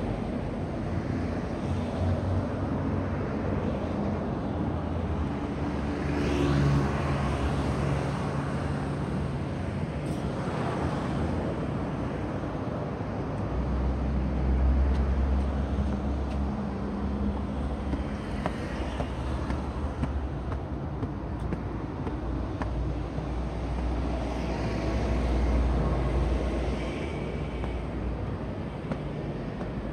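Outdoor street traffic: a steady hum of road noise, with several cars passing by one after another.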